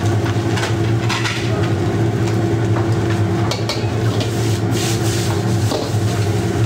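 Noodles sizzling and being stir-fried in a wok, with a metal ladle and spatula scraping and clanking against the pan several times over a steady low hum.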